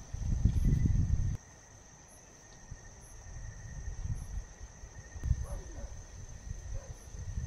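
Crickets and other night insects trilling steadily, with a faint high chirp repeating about once a second. A loud low rustling covers the first second and a half and cuts off suddenly, and softer rustling follows later.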